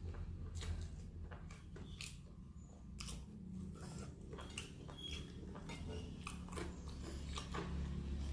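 Close-miked eating of crispy fried chicken: irregular sharp crunches of the fried coating as it is bitten and chewed, with wet chewing sounds between them.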